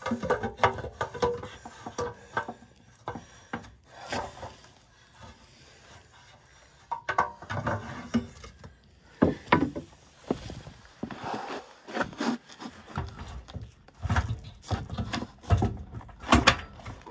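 Irregular clanks, knocks and scraping of metal as a drive chain is worked into place in a skid steer's chain case, with louder clusters of knocks near the middle and near the end.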